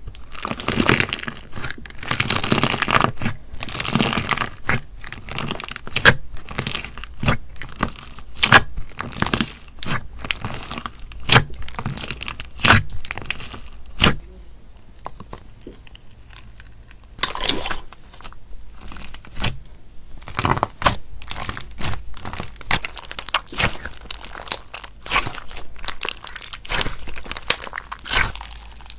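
Slime being squeezed and worked by hand, giving a dense run of crunchy crackles and sharp clicks. The crackles thin out for a few seconds a little past the middle, then pick up again.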